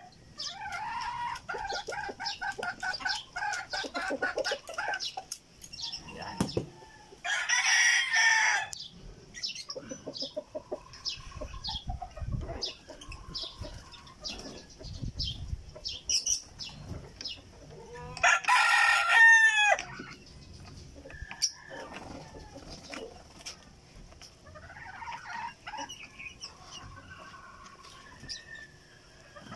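Roosters crowing, two long crows about 7 and 18 seconds in, each falling away at the end, with chickens clucking in between.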